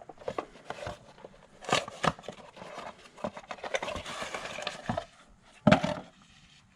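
Hands working on ignition coil packs in a car's engine bay with the engine off: scattered plastic clicks and knocks and a stretch of scraping, with a louder knock about five and a half seconds in.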